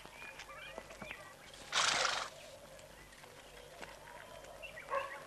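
A horse, with one loud breathy burst lasting about half a second, about two seconds in, and faint scattered clicks around it.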